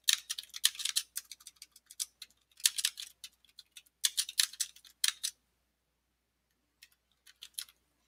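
Typing on a computer keyboard: rapid runs of keystroke clicks for about five seconds, a short pause, then a few last keystrokes near the end.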